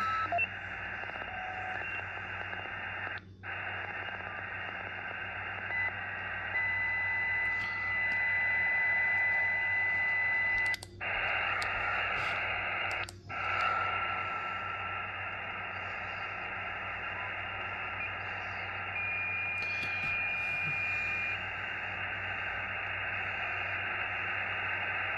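Xiegu X6100 HF transceiver's speaker putting out receiver hiss with steady whistling tones that come and go as it is tuned to different bands, broken by three brief dropouts. The whistles are birdies: spurious signals the radio produces itself.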